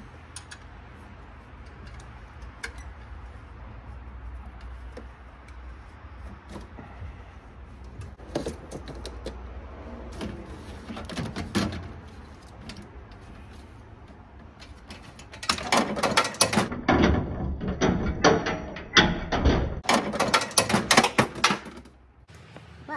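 Metal hand tools clinking and rattling: sockets and wrenches being picked from a plastic case and handled over the engine bay, with scattered clicks at first and dense bursts of rapid metallic clicking and clatter in the second half.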